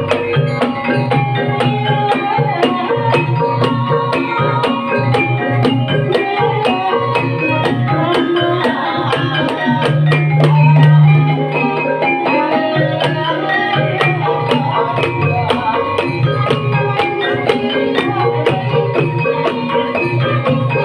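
Live Banyumasan gamelan accompaniment for an ebeg dance: tuned metallophones play interlocking melody over a steady beat of hand-drum strokes. A low note swells louder about halfway through.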